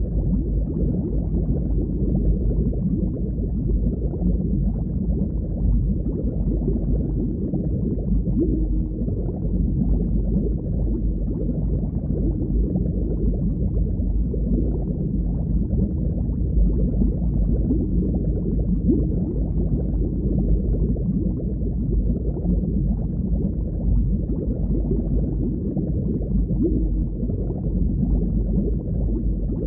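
Underwater ambience: a steady, deep, muffled wash of water noise with nothing high in it, rising and falling slightly but never stopping.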